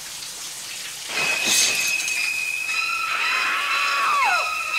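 Shower spray hissing, then a woman's long, high scream that begins about a second in and bends downward near the end, from a film soundtrack.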